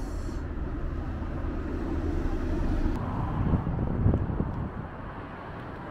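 Outdoor street ambience: a steady low traffic rumble with wind buffeting the microphone, swelling briefly with a few low thumps between about three and four and a half seconds in.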